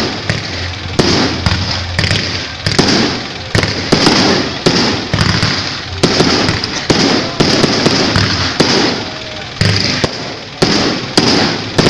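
Aerial fireworks shells bursting in a rapid series of sharp bangs, about one to two a second, each followed by a noisy echoing tail that fills the gaps between them.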